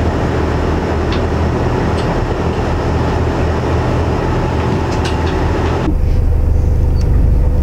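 Charter fishing boat's engine running steadily, heard with a dense rattling clatter from inside the cabin. About six seconds in the sound cuts abruptly to a deeper, smoother engine hum with the rattle gone.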